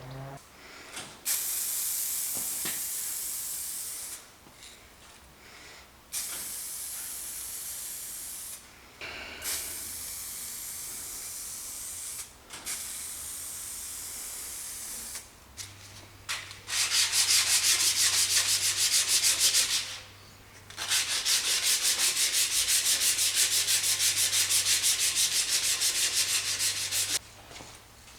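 Paint being abraded off an old steel bicycle frame. First come several separate stretches of rough rubbing, then from about halfway two longer, louder runs of a power tool with a fast, even pulsing and a low hum.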